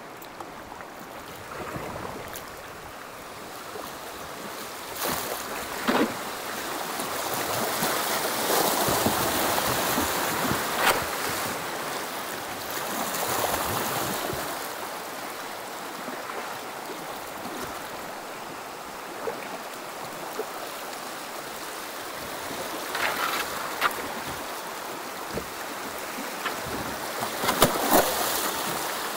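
Shallow river rapids rushing and splashing around a kayak as it runs through them. The rush swells and eases, louder where the boat drops into whitewater near the end, with a few sharp knocks along the way.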